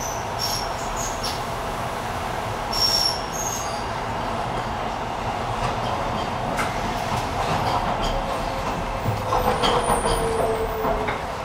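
Docklands Light Railway train running on the rails with a steady rumble and brief high wheel squeals in the first few seconds. A whine falls slowly in pitch near the end, joined by a quick run of clicks over rail joints.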